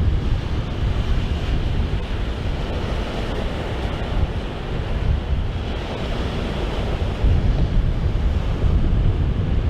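Strong wind buffeting the microphone in uneven gusts, a deep rumbling rush that grows a little stronger about seven seconds in.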